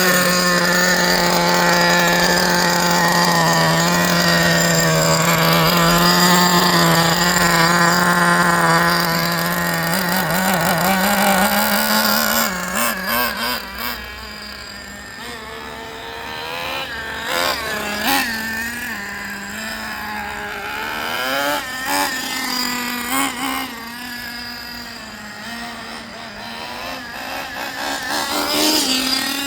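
Traxxas Slayer RC truck's nitro engine running during break-in. It holds a steady pitch for about ten seconds, then rises slightly and eases off, with several short throttle blips.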